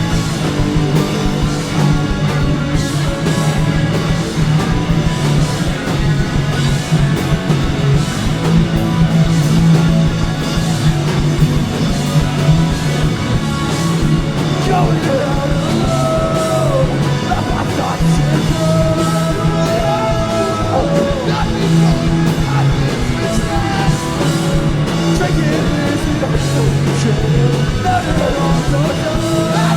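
Live rock band playing loud, with a singer's voice coming in about halfway through.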